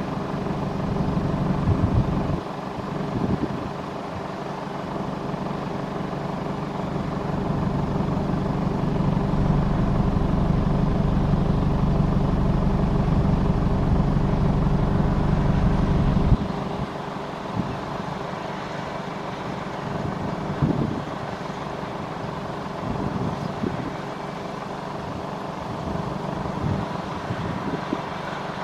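John Deere 8R 410 tractor running under load, pulling a New Holland BigBaler 1290 HD square baler as it bales straw. A steady engine drone is louder through the first half and drops off suddenly about sixteen seconds in, with a few scattered knocks from the machinery.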